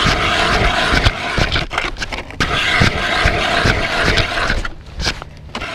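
StrikeMaster Lazer hand ice auger being cranked through lake ice, its blades grinding and scraping with many small cracks, dropping away about four and a half seconds in.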